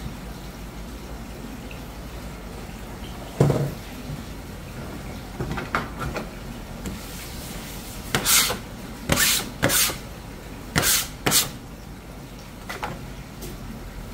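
A metal bench scraper is dragged across a plastic cutting board in about five quick, harsh scraping strokes, clearing it off. A single knock on the board comes earlier.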